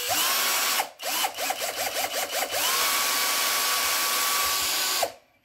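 Chinese copy of a DeWalt 12 V cordless drill-driver running under its trigger, on a freshly charged battery that proves the repaired charger works. A short run stops about a second in. Then the trigger is blipped in a quick string of short spins, followed by a steady run of about two seconds that winds down near the end.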